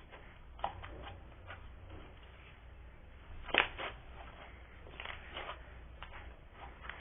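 Slime being handled: a scatter of soft sticky clicks and pops, the loudest about three and a half seconds in.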